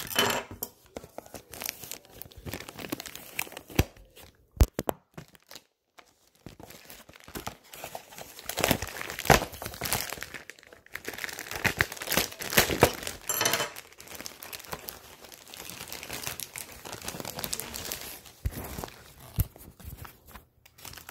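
Packing tape being pulled off and clear plastic wrapping crinkling, in irregular rustling and tearing bursts. There is a sharp snap about four and a half seconds in and a brief pause just after.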